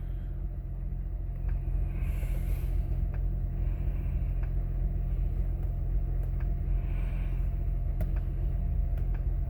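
2006 Honda Accord 3.0 V6 engine idling steadily with its new spark plugs, after a misfire on cylinders 5 and 6 was traced to worn plugs.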